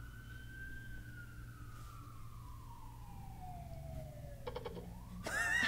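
Police siren wailing faintly: one long, slow rise and fall in pitch. A louder sound cuts in just at the end.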